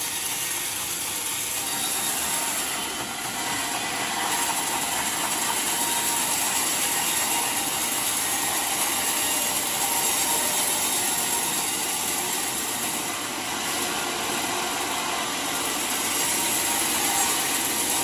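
Large band sawmill running, its blade cutting lengthwise through a huge trembesi (rain tree) log: a loud, steady, hissing saw noise.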